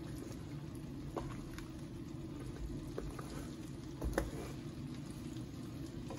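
Green chilies cooking gently in mustard oil in a frying pan over medium heat: a low, steady bubbling with a few small pops and clicks, the loudest about four seconds in.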